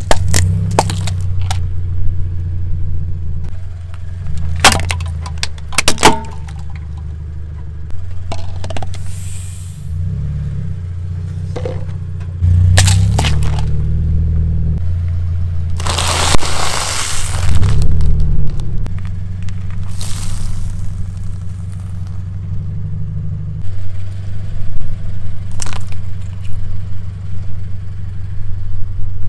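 Car tyre rolling over and crushing plastic M&M's candy tubes and candies: repeated sharp cracks and crunches of the plastic breaking, with a longer crackling stretch about halfway through, over the steady low hum of the car's engine.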